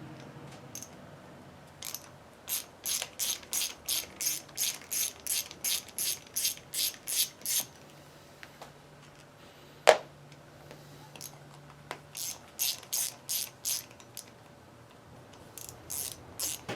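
Hand ratchet wrench clicking in runs of about three clicks a second as bolts on the winch housing are backed out, with one sharp knock about ten seconds in.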